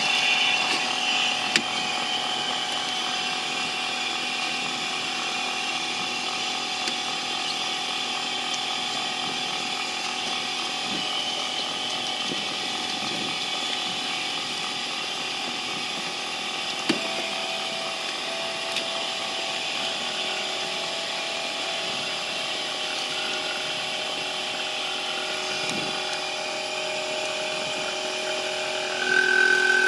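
A machine running steadily with a constant hum and several held tones; near the end a louder, higher steady tone starts.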